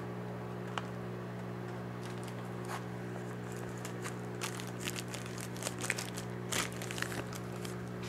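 Plastic bag crinkling in short, sparse rustles and ticks as it is handled around a sledgehammer head, over the steady hum of a running microwave oven.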